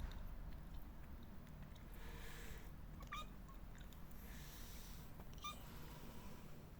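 Newborn kitten, about three days old, giving two short high mews about two and a half seconds apart.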